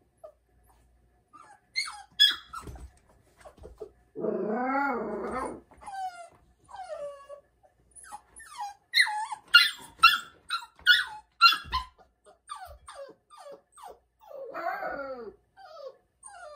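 Labrador retriever puppy crying in its crate: a string of short high yelps and falling whines, with a longer, lower wail about four seconds in and another near the end. It is the anxious night crying of a puppy left alone in a crate for the first time.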